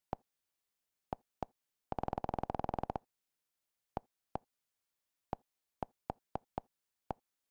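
Short, identical electronic menu-navigation beeps from a streaming box's on-screen interface as the remote's direction key is pressed to scroll a TV channel guide. They come one at a time at uneven intervals, with a rapid run of them for about a second, about two seconds in, as the key is held to scroll fast.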